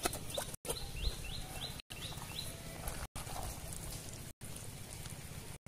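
A bird calling with a quick run of about six short, falling chirps in the first couple of seconds, over a low steady outdoor rumble. The sound drops out completely for a split second roughly every second and a quarter.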